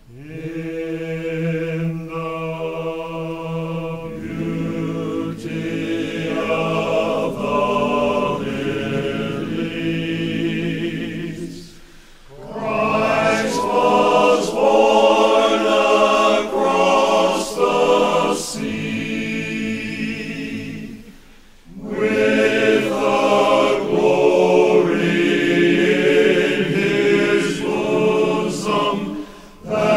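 A choir singing in sustained harmony, without words the recogniser could pick out, in long phrases with two short breaks, about twelve and about twenty-one seconds in.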